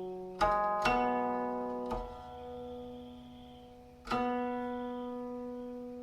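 Silk-stringed guqin playing a slow passage: four single plucked notes, each left to ring and fade slowly, the last and strongest about four seconds in.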